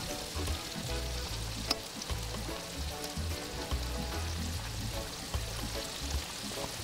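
Chicken pieces deep-frying in hot oil over a wood fire: a steady sizzle, with one sharp pop a little under two seconds in.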